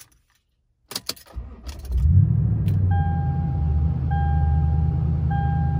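Key clicks in the ignition, then a vehicle engine is cranked by the starter and catches about two seconds in, settling into a steady idle. From about three seconds in, a dashboard warning chime sounds in long beeps about once a second.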